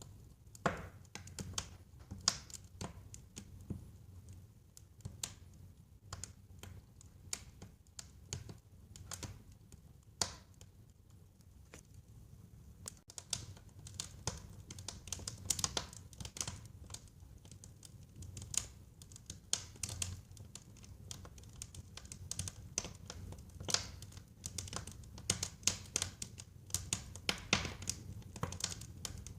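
Wood fire crackling in a fireplace: irregular sharp pops and snaps, thicker and louder from about halfway on, over a low steady rumble of the flames.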